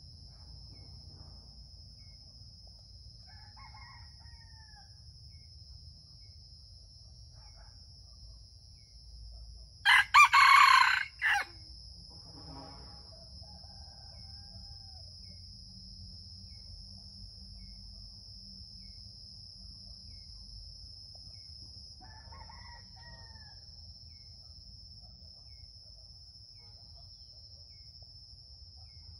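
A rooster crows once, loud and clipped, about ten seconds in, over a steady high insect drone. Two much fainter calls come about four seconds in and again past twenty seconds.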